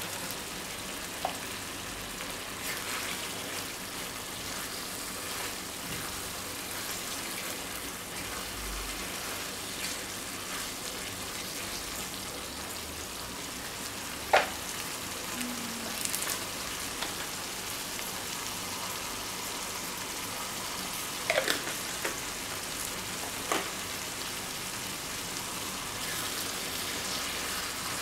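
Spaghetti in tomato sauce sizzling in a frying pan on a gas burner: a steady hiss with a few sharp clicks, the loudest about halfway. Near the end a wooden spatula starts stirring the pasta through the sauce.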